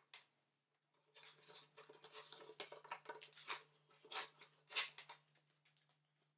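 Light handling noise of hands working small wooden pieces at a workbench: a run of soft scratchy rustles and clicks starting about a second in, with the sharpest click about three quarters of the way through, over a faint steady hum.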